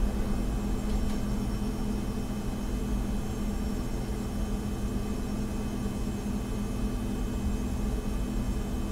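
Steady low mechanical hum with an even hiss over it, and a faint tick about a second in.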